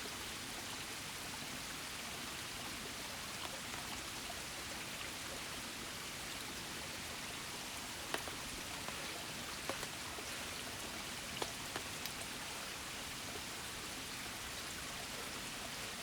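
Shallow river babbling steadily, with a few faint light ticks partway through.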